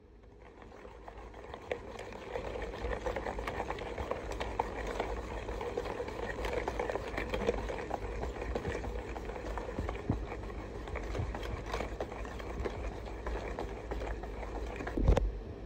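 Wire whisk beating a wet egg-and-butter mixture fast in a stainless steel bowl: a steady rattling and scraping of the wires against the metal, with a louder knock near the end.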